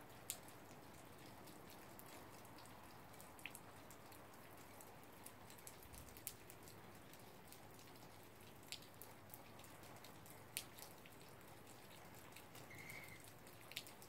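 Near silence: a faint steady hiss with about half a dozen sharp little ticks at irregular intervals.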